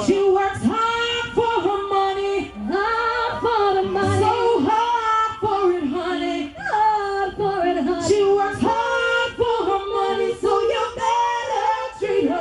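A woman singing live into a microphone over reggae backing music, holding long notes that bend in pitch.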